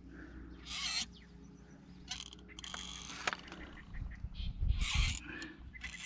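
Grease gun with a LockNLube coupler head pumping grease into a hydraulic cylinder's grease fitting. There are a few separate strokes, a sharp click a little past three seconds in, and low thumps near the end.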